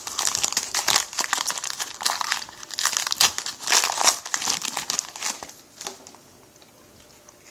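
Plastic wrapper of a trading-card pack crinkling as it is torn open and pulled off the cards, about five seconds of crackling that stops near the end.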